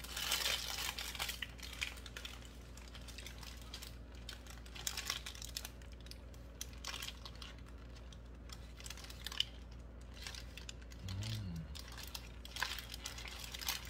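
Paper burger wrapper crinkling as it is peeled back, densest in the first couple of seconds, then wet chewing of a mouthful of hamburger with scattered small clicks. A brief hummed voice sound comes about 11 seconds in.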